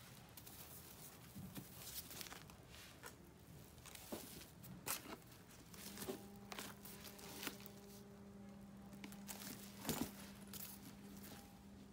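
Handling noise from a quilted leather handbag: scattered soft rustles, crinkles and small clicks as hands move the bag and its protective handle wrapping. A faint steady hum starts about halfway through.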